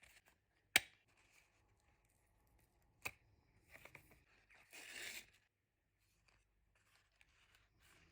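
Paper and crafting tools handled while making a journal tag: a sharp click about a second in, another click near three seconds, and a short rasping stretch of paper sound around five seconds.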